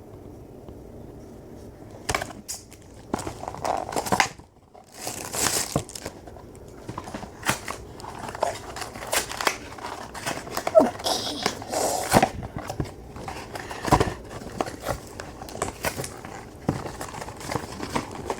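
Toy blaster packaging being handled and unwrapped: plastic crinkling and rustling with irregular clicks and knocks, starting about two seconds in.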